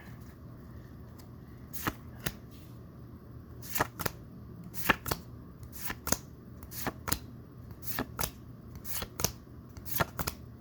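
Pokémon trading cards being flipped through by hand one at a time, each card making a short, sharp snap or slide, about one a second, sometimes two in quick succession.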